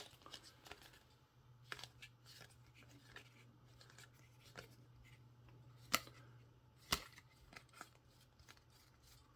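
Baseball trading cards being handled and flipped through: soft irregular clicks and slides of card stock, with two sharper snaps about six and seven seconds in, over a faint steady low hum.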